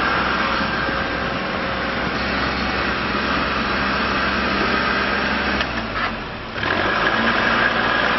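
Kubota L3301D tractor's diesel engine running steadily, with a brief drop in sound about six seconds in before it picks back up.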